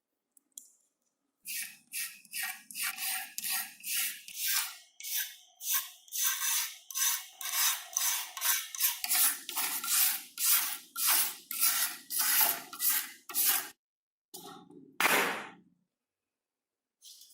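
Rapid back-and-forth rasping strokes by hand on a model car part, about two to three a second. The strokes pause briefly near the end, then come twice more.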